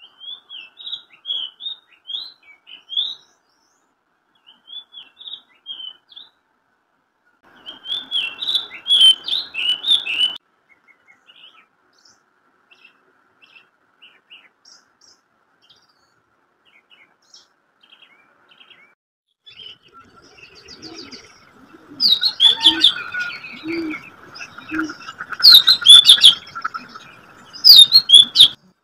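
Small birds chirping and tweeting in scattered bursts of short high chirps, busiest and loudest in the last several seconds.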